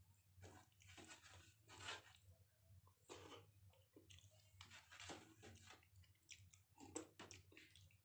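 Faint chewing and the soft wet squish of fingers mixing rice with dal and curry on a plate, in short irregular bursts over a low steady hum.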